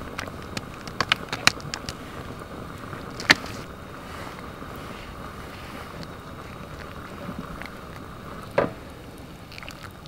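Cooking a pot of green curry: a steady hiss under the pot, broken by sharp clinks and taps of a ladle and sauce bottles against the pot. There are several quick clinks in the first couple of seconds and the loudest one about three seconds in, and a ringing clink near the end.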